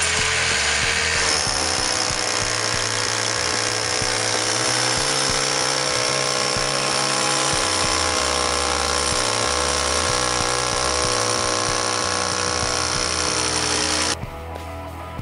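Rotary hammer drill with a long masonry bit boring an entrance hole through a brick wall, running steadily under load; its pitch dips slightly about a second in and it cuts off suddenly near the end.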